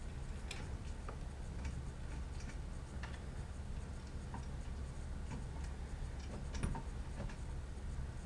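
Scattered light clicks and taps of metal parts being handled as an aluminium end plate is fitted onto the end of a CNC rail assembly, over a low steady hum.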